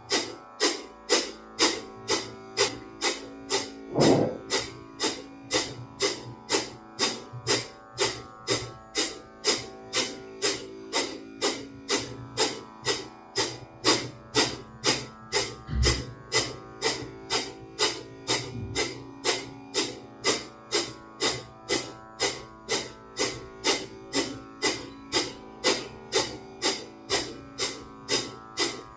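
Kapalabhati breathing: a steady train of short, forceful exhalations through the nose, about two a second, over soft background music with plucked strings.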